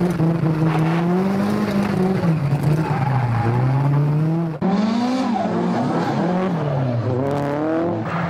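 A drift car's engine revving hard, its pitch climbing and dropping again and again with throttle and gear changes, heard from inside the cabin. Just past halfway the sound cuts abruptly to the same kind of hard revving heard from outside the car.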